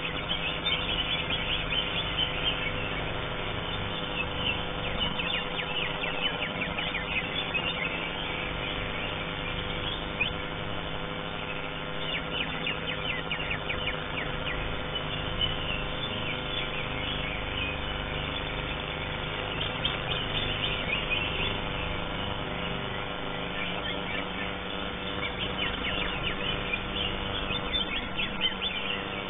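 Greater green leafbird (cucak hijau) singing in spells of rapid high chirps and trills, with short pauses between them, over a steady hum.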